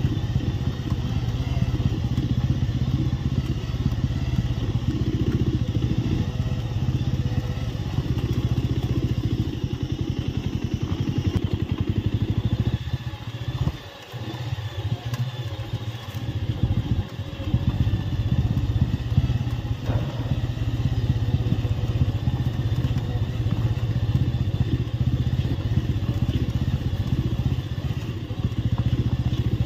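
Bajaj Avenger 220 Street's single-cylinder engine running as the bike rides over a rough dirt and gravel track. Its sound drops off briefly about halfway through, then comes back up.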